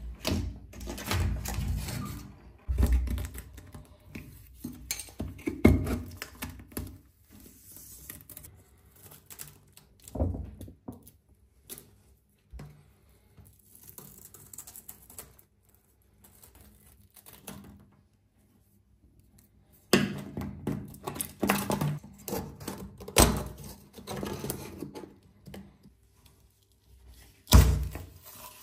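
A screwdriver scraping and prying old, dried silicone sealant out of a shower stall's corner seams: irregular scratching with clicks and knocks of the tool against the tray, and a near-quiet stretch a little past the middle.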